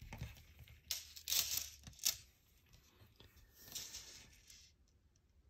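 Metal ball chain clinking and rattling against a tabletop as it is handled and laid out, in a few brief, soft bursts over the first four seconds.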